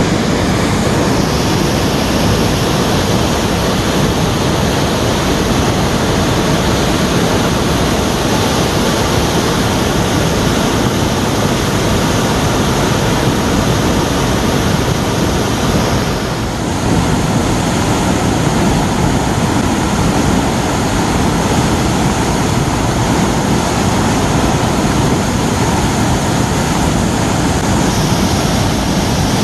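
Waterfall in spate after heavy rain: a loud, steady rush of falling water, with a brief dip about halfway through.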